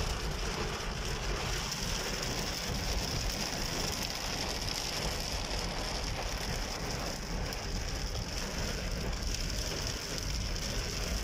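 Heavy rain falling on a moving car, heard from inside the cabin: a steady hiss over a low road rumble.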